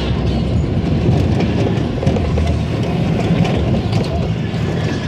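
Spinning tub-car amusement ride of the Tilt-A-Whirl type running, heard from on board: a steady rumble with rapid clatter from the cars' wheels rolling on the platform track.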